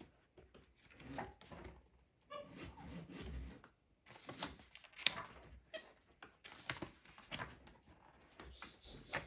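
Capuchin monkey turning and patting the paper pages of a large hardcover picture book: scattered crisp page rustles and light taps. A short faint squeak sounds about two and a half seconds in.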